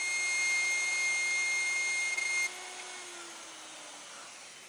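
Festool OF 1400 EQ plunge router with a spiral bit running with a steady high whine as it cuts a through-slot. It is switched off about two and a half seconds in, and its motor winds down.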